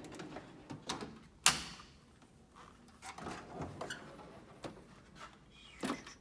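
Steel drawers of a US General rolling tool chest sliding shut and open, with several metal knocks and clunks, the loudest about a second and a half in.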